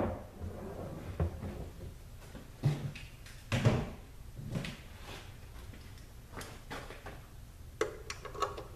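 Scattered knocks and clunks of tools and parts being handled, then near the end a quick run of small clicks as a ratchet begins turning a bolt that holds the transmission filter to the valve body.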